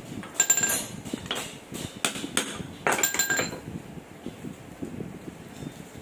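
Metal-on-metal strikes and clinks on a propeller shaft's universal-joint yoke, several sharp hits with a ringing tail, the two loudest about half a second and three seconds in.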